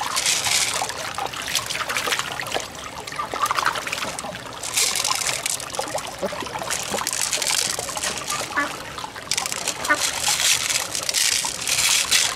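Water trickling and splashing over rocks, swelling and easing in waves. Small clicks come as the opened mussel shell and the beads in it are handled in the wet.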